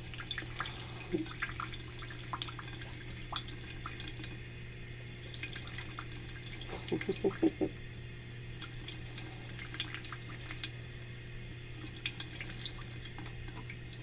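Kitchen tap running in a thin stream, splashing and pattering onto a cockatiel bathing beneath it on a plastic board. A steady low hum runs underneath.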